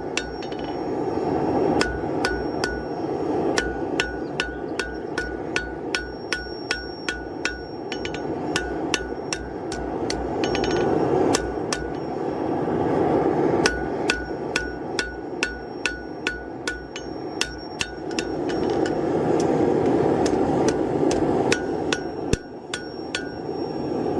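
Hand forging: hammer blows on hot steel over an anvil, about two to three a second with a few short pauses, each blow ringing. A steady rushing noise runs underneath.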